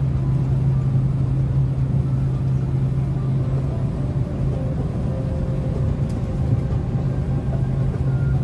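Steady low drone of airliner cabin noise, even and unbroken throughout.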